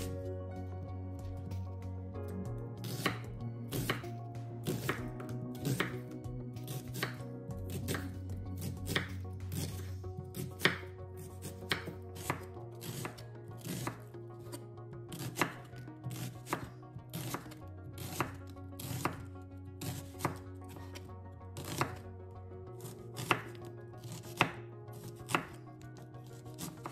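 Chef's knife slicing a red onion into rings on a wooden cutting board: a sharp cut and knock on the board about twice a second, starting a couple of seconds in. Soft background music runs underneath.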